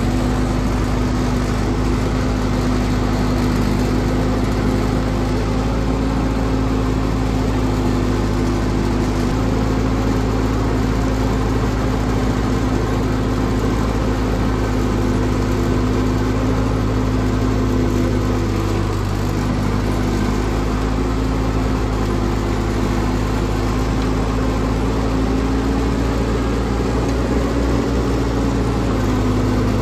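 Vintage farm tractor engines running steadily under load while driving through deep snow, the tractor carrying the microphone loudest, its engine note holding even with only small dips.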